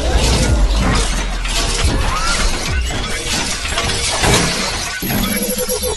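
Logo-intro sound effects: a dense, continuous run of shattering, crashing debris over a deep low rumble.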